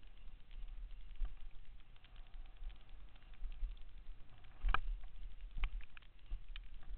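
Downhill mountain bike rolling fast over a dirt trail: chain and frame rattle with frequent small clicks and knocks, the loudest jolt about two-thirds of the way in, over a steady low rumble.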